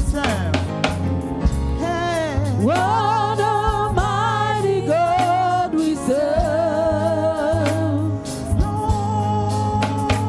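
Gospel praise-and-worship music: long sung notes with vibrato over a steady bass line and drums.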